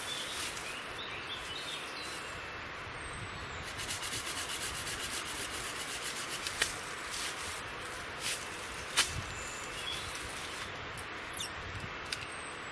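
A small pen knife scraping along a freshly cut hazel stick: a run of quick, even scraping strokes, about five a second, a few seconds in, then a few separate sharp clicks, the loudest about nine seconds in. Birds chirp faintly.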